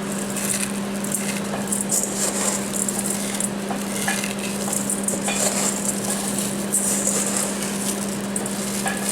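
Food sizzling in a pan on the stove: a steady hiss that flares up now and then, over a constant low hum.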